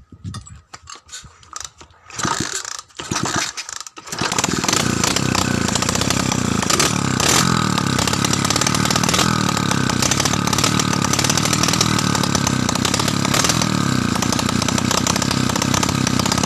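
Honda C90 single-cylinder four-stroke engine sputters in short bursts for the first few seconds. About four seconds in it catches and runs steadily at a raised idle, firing on its newly fitted CDI ignition.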